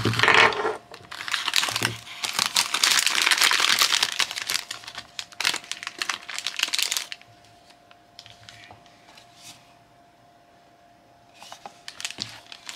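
Plastic packaging crinkling and rustling as a bag is pulled and torn open by hand, dense for about the first seven seconds, then only a few faint rustles and light clicks.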